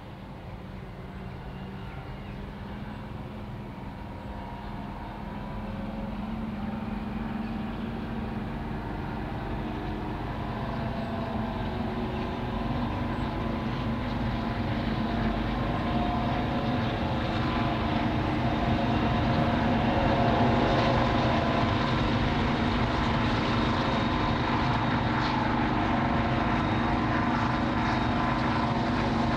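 Class 55 Deltic diesel locomotive D9009, with its twin Napier Deltic two-stroke engines, approaching under power: a steady engine drone that grows steadily louder as it nears.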